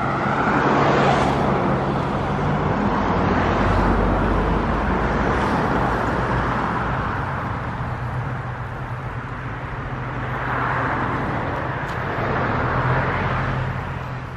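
Road vehicle noise: a steady rush of tyres and engine with a low hum, swelling and easing several times.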